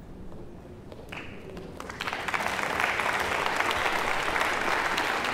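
Audience applause in a hall, starting sharply about two seconds in and going on as dense, steady clapping.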